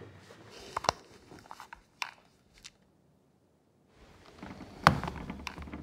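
A few soft, sharp clicks and small rustles in a quiet room, with about a second of dead silence in the middle and the loudest click near the end.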